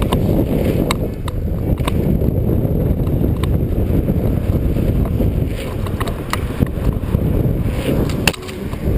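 Mountain bike rolling fast down a packed-dirt jump line: a dense tyre and wind rumble on the helmet-mounted microphone, with scattered sharp clicks and rattles from the bike over the bumps.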